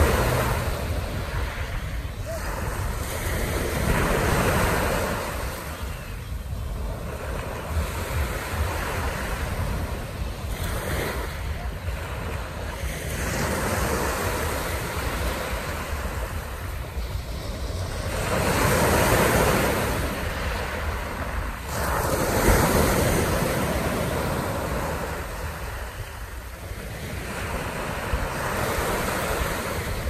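Small sea waves breaking on a pebble beach and washing up the shingle, swelling and easing every few seconds, the biggest surges near the middle. Wind rumbles on the microphone underneath.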